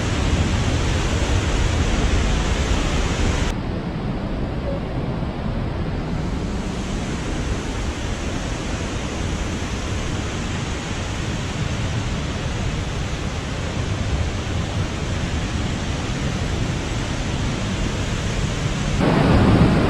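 Palaruvi waterfall in full monsoon flow: water rushing down with great force in a steady, even noise. The sound turns duller and a little quieter about three and a half seconds in, and swells louder again near the end.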